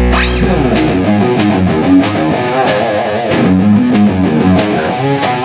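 Background music with guitar over a steady beat, about three strokes every two seconds; a held chord at the start gives way to moving notes within the first half-second.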